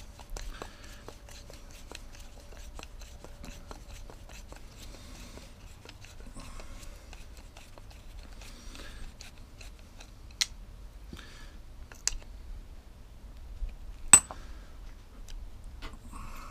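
Small metal ticks and scrapes of a screwdriver backing the adjusting screw out of a lawnmower carburettor as the carburettor is handled, with a few sharper clicks about ten, twelve and fourteen seconds in, the last the loudest.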